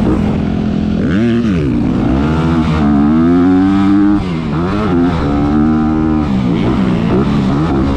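Honda CRF250R's four-stroke single-cylinder engine under hard riding, the revs climbing and dropping several times as the throttle is rolled off and back on around the track.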